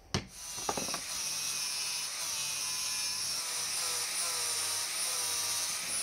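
Electric angle grinder switched on with a click, running up to speed and then cutting into a rusted, seized steel screw head, its whine dipping and rising as the disc bites into the metal.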